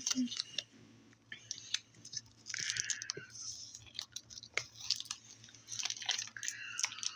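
A person chewing a piece of cheese close to the microphone, with scattered small mouth clicks.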